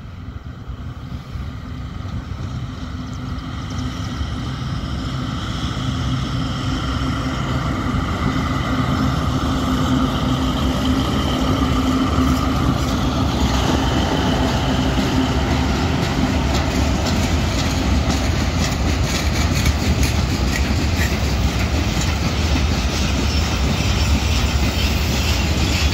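2M62UM twin-section diesel locomotive approaching and passing with its engines running, growing louder over the first several seconds. From about halfway the engine tone gives way to the rolling clatter of the empty freight wagons' wheels on the rails.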